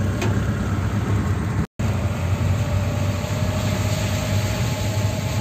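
Steady engine and road noise inside a car's cabin while it drives downhill, with a low hum; the sound cuts out for an instant about a second and a half in.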